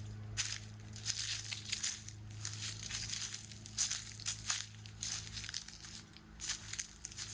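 Footsteps crunching over loose ground, an irregular string of gritty steps, with a steady low hum underneath.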